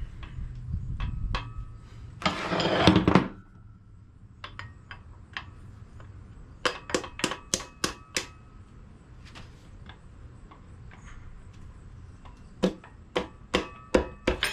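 Hand tools working on a piston in the engine block, metal on metal: a short rattling burst about two seconds in, then runs of sharp, ringing metallic taps and clicks, several a second, as the piston is worked out of its bore.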